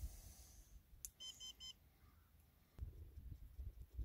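Rocket altimeter in the electronics bay sounding its status code: three short, evenly spaced high beeps about a second in. The three-beep pattern means the altimeter is armed and has continuity on both ejection charges.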